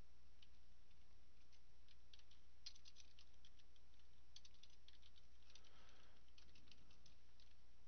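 Computer keyboard being typed on in short runs of keystrokes, over a steady low hum.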